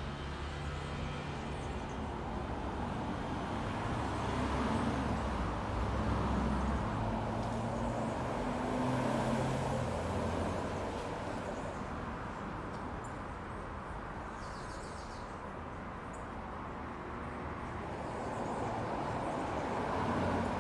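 Low hum of road traffic: a motor vehicle engine running, swelling and fading over several seconds, with a steady low drone through the first half.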